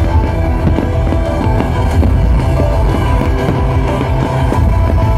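Loud rock music with heavy bass, played over the fireworks show's sound system.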